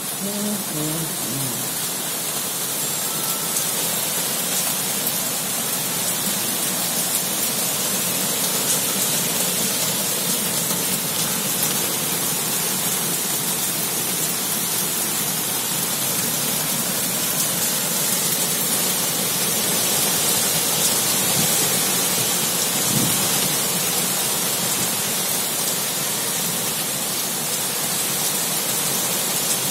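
Heavy monsoon rain falling steadily on garden trees and foliage.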